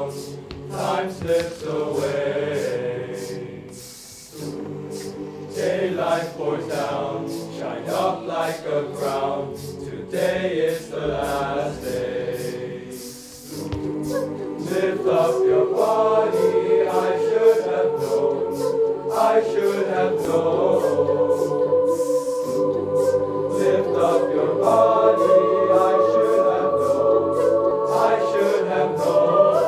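A large mixed choir singing, over a steady beat of sharp clicks. The singing swells louder and fuller about halfway through.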